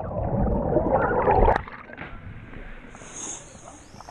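Water churning and gurgling loudly in a canyon pool, cutting off suddenly about a second and a half in, then a quieter stretch with a steady hiss of running water.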